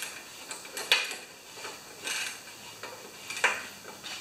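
Irregular metal clicks and clinks of a socket wrench and hand tools working on a small Tecumseh engine's carburetor float bowl, the sharpest about a second in and again near the end.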